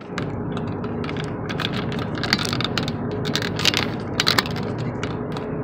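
Handling noise from a phone held in the hand: a run of small irregular clicks and rustles, thickest in the middle, over a steady low hum inside a car.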